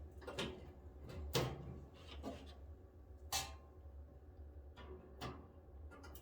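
A handful of faint, short clicks and taps from multimeter probe tips being set against the dryer heating element's terminals, with no continuity beep: the element is open and bad.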